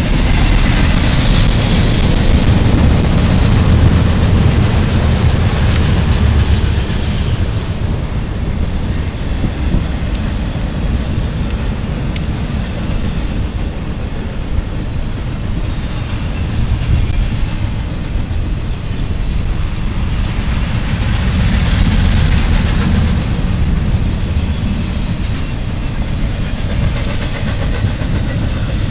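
CSX intermodal freight train's container well cars rolling past close by, steel wheels on rail making a steady low rumble. It is louder in the first several seconds and swells again about two-thirds of the way through.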